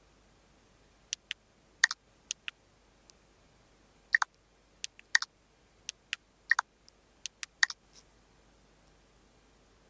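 Irregular run of about twenty sharp clicks, many coming in quick pairs, starting about a second in and stopping near eight seconds.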